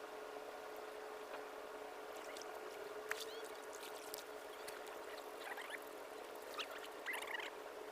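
Water splashing and trickling in short spells over a steady drone that holds one tone.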